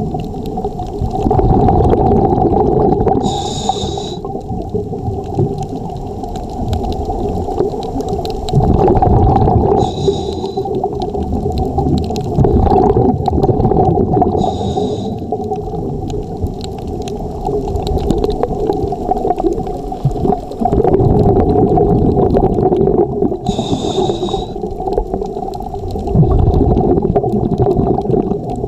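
Scuba diver's regulator breathing, heard underwater: a short hiss on each inhale, four times, and long gurgling rushes of exhaled bubbles between them, over a steady low hum.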